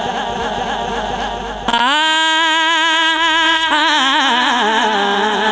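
A male naat reciter singing unaccompanied devotional melody. Wavering, ornamented turns give way about two seconds in to a long, steady held note, which breaks back into wavering turns near the end.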